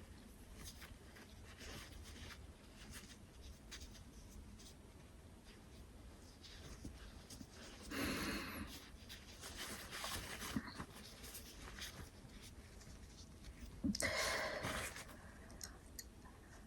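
Faint, scratchy rustling of a twisted paper string (kovori) being twirled inside the nostril to tickle out a sneeze that does not come. Two louder breathy sounds, each about a second long, come about eight and fourteen seconds in.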